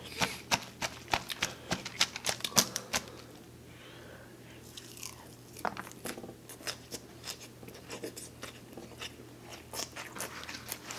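Close-up crunching and chewing of crisp chopped lettuce salad: a quick series of sharp crunches that eases off about three seconds in and picks up again about halfway through.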